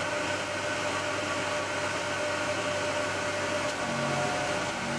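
Bridgeport milling machine running steadily with a light whine, its spindle turning a wiggler-style center finder against the lathe tailstock quill to find the quill's center. Background music comes in about four seconds in.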